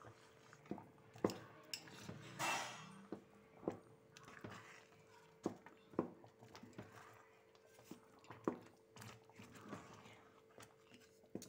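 Metal spoon stirring a thick semolina and moong dal pongal in a pan, knocking and scraping against the pan at irregular intervals of about a second, with a short swish about two and a half seconds in.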